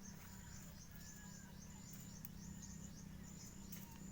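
Faint outdoor insect chorus: a high, steady trill that breaks off and starts again, over a run of short falling chirps, with a low steady hum underneath.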